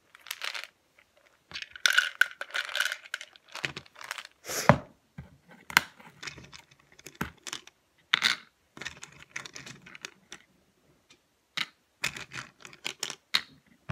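Pills rattling in a plastic prescription bottle and clicking as they drop into a plastic pill organizer: irregular sharp clicks and taps with short rattles.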